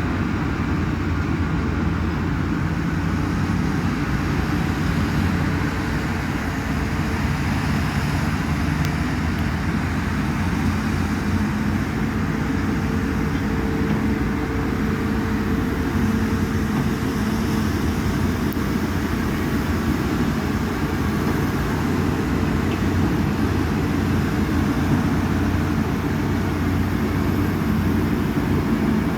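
Volvo excavator's diesel engine running steadily under load.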